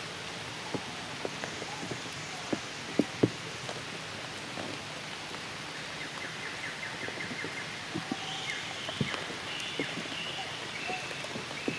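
Rain falling steadily, with scattered drops hitting close by. A quick run of ticks comes about six seconds in, and high, short chirping calls follow from about eight seconds.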